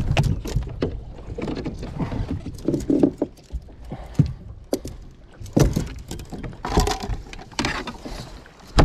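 Scattered knocks, clicks and rustling of gear being handled on a boat deck: a storage hatch opened and a landing net pulled out of it.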